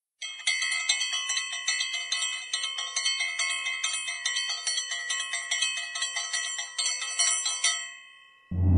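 Bell-like chimes struck rapidly, several a second, ringing in a steady repeating pattern, then fading out just before the end. Loud music with a heavy bass cuts in at the very end.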